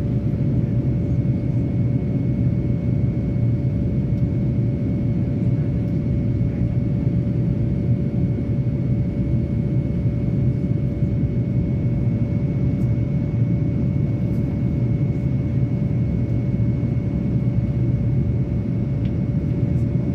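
Cabin noise of a Boeing 787-9 climbing out after takeoff: the GEnx-1B turbofans' steady low roar mixed with airflow past the fuselage, with a steady hum and a fainter, higher tone over it.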